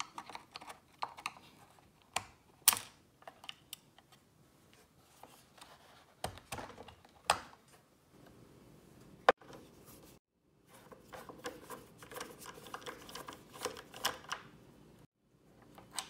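Small plastic clicks, taps and scrapes of hands and a screwdriver working the timer knob and dial of a washing machine control panel, with a few sharper snaps standing out.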